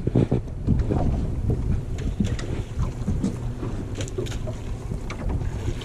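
Small fishing boat's motor running steadily as a low rumble, with wind buffeting the microphone and a few scattered knocks.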